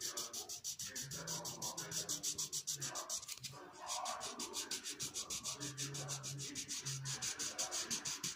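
Wax crayon scrubbed rapidly back and forth on workbook paper, colouring in a letter: a fast, even scratching of many strokes a second, with a short pause about three and a half seconds in.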